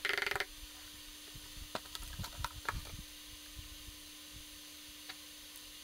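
Clumping clay cat litter pouring from its box into a plastic litter tray in a short rattling burst, cut off about half a second in. After it, scattered faint ticks of grains settling over a faint steady hum.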